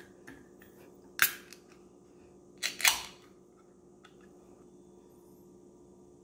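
Ring-pull tab of an aluminium iced coffee can being opened: a sharp click about a second in, then a louder double crack with a short hiss as the lid breaks open.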